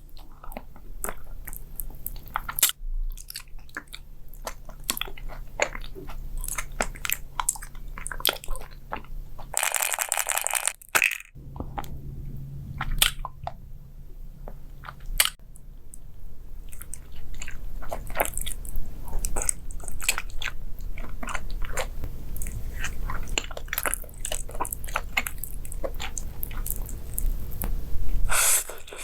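Close-miked biting, crunching and chewing of food, a dense run of crisp crackles and clicks, with a louder burst of noise about ten seconds in.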